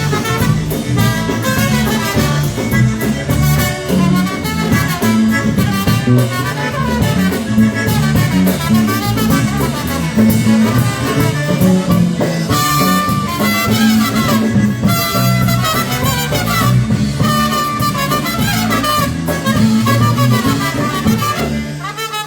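Live polka band music playing, with a steady bouncing bass line.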